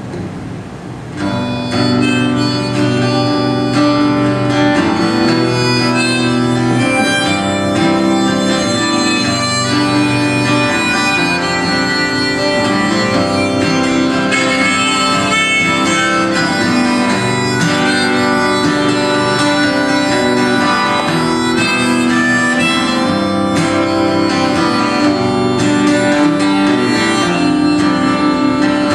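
Harmonica played from a neck rack over acoustic guitar, an instrumental break in a folk song; the harmonica comes in loudly about a second in and plays long held notes throughout.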